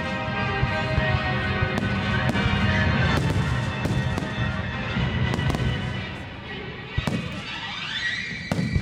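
Aerial firework shells bursting with sharp bangs and pops, over loud accompanying music. Near the end a rising whistle climbs and then holds.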